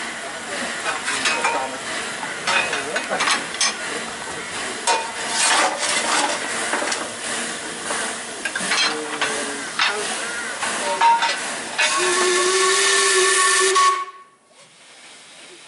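Narrow-gauge steam locomotive hissing, with irregular clicks and knocks. Near the end its steam whistle sounds one steady note over loud hiss for about two seconds, then cuts off suddenly.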